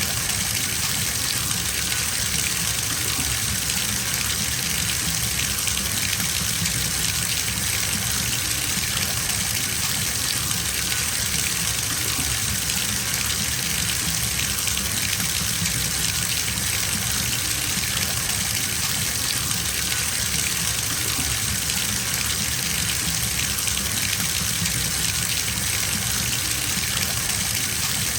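Bathtub filling: water gushing steadily from the tap into the tub, a constant hiss with a low rumble underneath.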